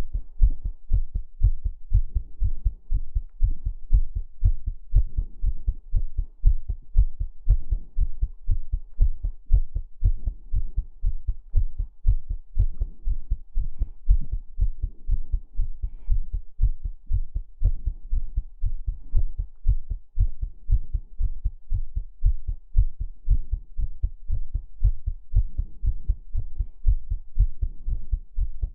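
Heartbeat sounds: a steady, even rhythm of deep, muffled thumps.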